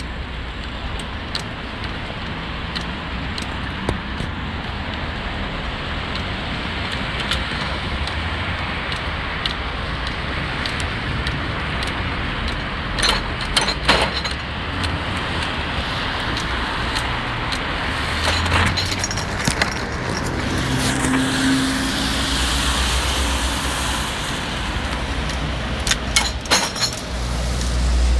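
Riding a bicycle through town traffic: a steady low rumble of wind and road noise on the bike-mounted microphone, with the bike rattling and clattering over bumps in a few short spells, around halfway and again near the end, and cars passing.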